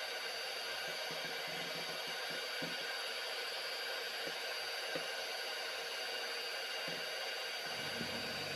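Kenwood electric hand mixer running steadily, its beaters whipping egg whites to stiff foam: an even whir with a thin high whine and a few faint taps.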